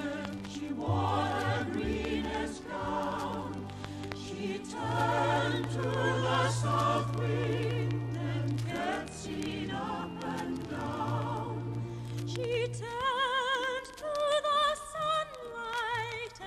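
Choir singing with vibrato over an orchestral accompaniment, played from a vinyl LP with faint surface crackle.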